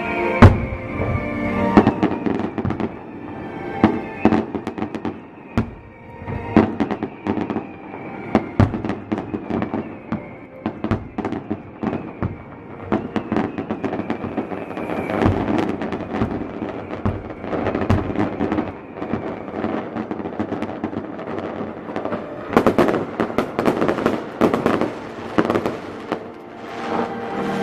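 Fireworks going off in quick succession: many sharp bangs and cracks at irregular intervals, the loudest about half a second in, with a dense crackling run near the end, over music playing.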